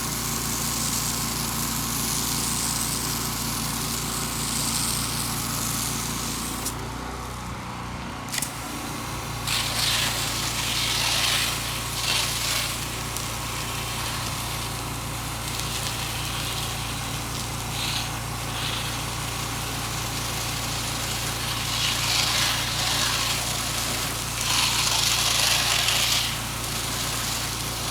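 Gas-engine pressure washer running steadily while its wand sprays water against the house, the spray hiss cutting out briefly about seven seconds in as the trigger is let go, then coming back in swells.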